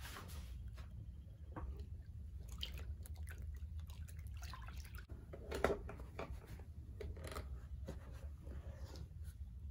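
Water sloshing and dripping as a rubber-gloved hand swishes soapy water around a plastic tub: irregular small splashes, with one louder splash a little past the middle.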